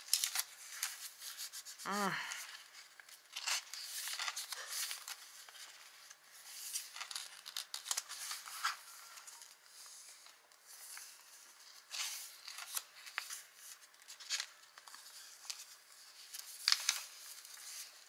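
Paper and card pages of a handmade junk journal rustling and crinkling as they are handled and turned, in irregular swishes. A short hum of a woman's voice about two seconds in.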